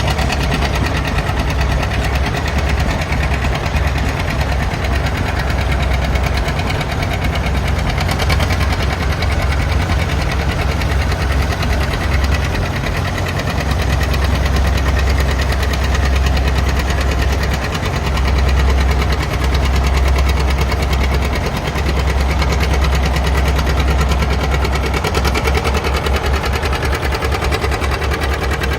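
Antique farm tractor engine running with a rapid, even firing beat, swelling a little louder for a few seconds past the middle.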